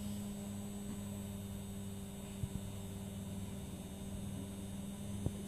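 Steady low electric hum, with two faint knocks about two and a half seconds and five seconds in.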